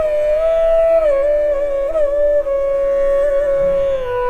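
Background music: a slow melody of long, gliding notes over a steady drone, settling on a lower held note near the end.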